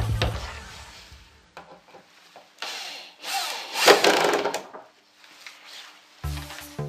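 Corded electric hand drill with a keyed chuck boring down into a laminated chipboard shelf, the bit cutting through the board for about two seconds midway. Background music with a heavy beat fades out at the start and comes back near the end.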